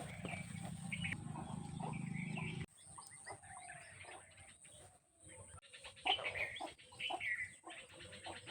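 Animal calls, chiefly short bird-like chirps and clucks, scattered throughout. A steady low hum runs under them and stops suddenly about two and a half seconds in.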